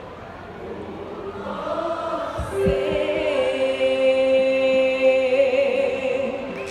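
Audience singing the chorus of a ballad together, then from about two and a half seconds in a long final chord held by voices over an electronic keyboard, ending the song.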